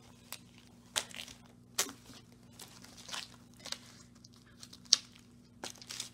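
Plastic photocard sleeves and binder pages being handled: irregular crinkling and short rustles with light taps, the sharpest tap about five seconds in.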